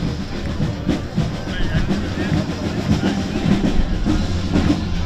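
Street parade ambience: drum-led music playing with people talking among the crowd, over a low rumble.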